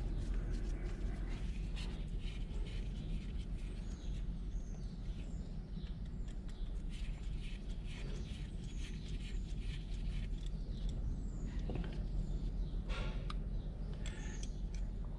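Small birds chirping repeatedly in the background, with scattered light clicks and taps from small carburetor parts being handled as the fuel-pump diaphragm is taken off, over a steady low hum.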